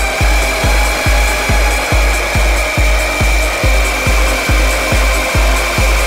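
Electronic dance music with a steady, driving kick drum, a bit over two beats a second, and ticking hi-hats above it.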